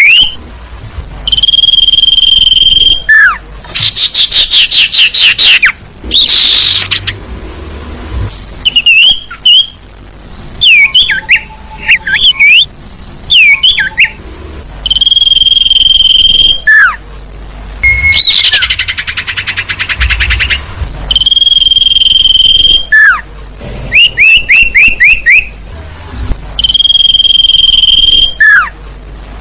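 A loud bird-lure recording for the sirtu (scops owl). Long, steady high whistles recur every few seconds, alternating with rapid trills, short chirps and sharply falling notes.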